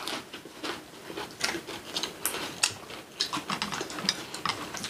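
Eating at the table: irregular small clicks and taps of utensils on dishes, several a second.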